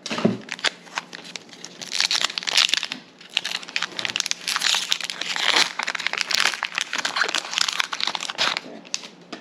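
Foil booster-pack wrapper of Pokémon trading cards crinkling and being torn open, in several crackly bursts.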